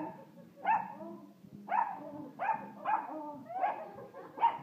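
A dog barking repeatedly: about seven short, sharp barks, each dropping in pitch, one every half second to a second.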